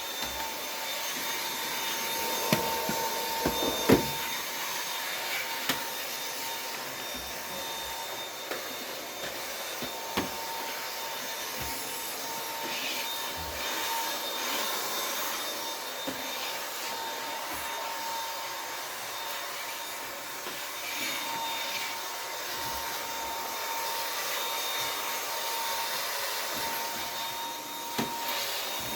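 Dyson vacuum cleaner running steadily with a constant whine, its head picking up scattered clicks and knocks as it is pushed over the floor.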